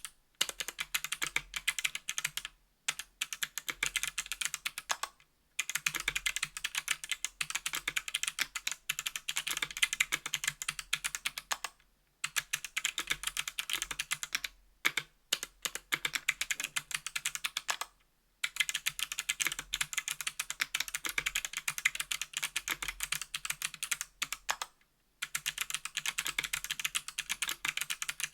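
Fast typing on a 60% aluminum mechanical keyboard with Kailh BOX Crystal Jade clicky switches: crisp, high clicks in steady runs, broken by several short pauses.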